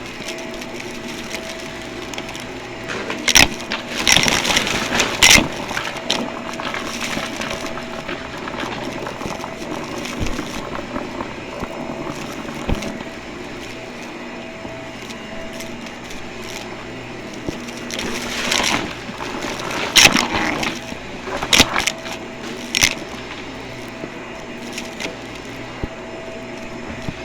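Vacuum cleaner running with a steady motor whine and hum. Two stretches of sharp clicks and rattling come through, a few seconds in and again about two thirds of the way through.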